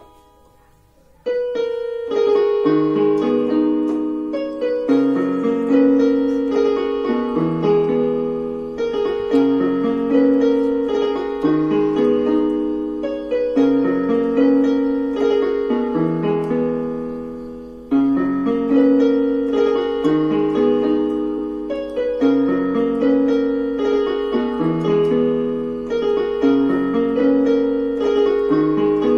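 Portable electronic keyboard played in a piano sound: a slow, romantic-style melody over chords that change about every two seconds. It comes in after a short pause about a second in, and the phrase fades and starts over about two-thirds of the way through.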